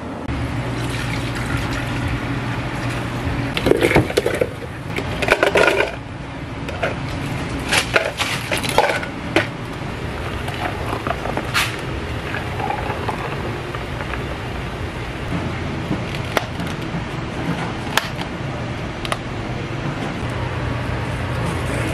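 Cafe counter work sounds: scattered knocks, clinks and rustles from handling a dessert box, plastic cups and ice, over a steady low hum. The handling sounds come in a busy cluster in the first half, loudest a few seconds in, then thin out.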